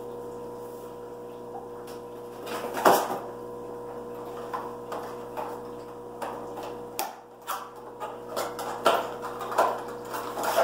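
A small cardboard box and its packaging being handled and opened by hand: a knock and rustle about three seconds in, then a run of crinkles and clicks. A steady low hum sits underneath.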